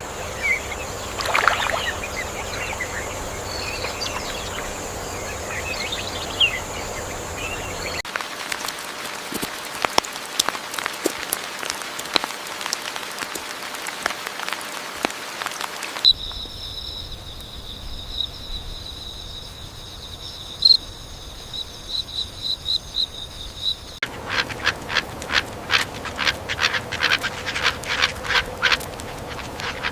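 Tropical rainforest ambience of birds and insects, changing abruptly about every eight seconds. It moves from scattered bird chirps, to a dense crackle of clicks, to a steady high-pitched insect drone, and then to a rapid run of repeated calls.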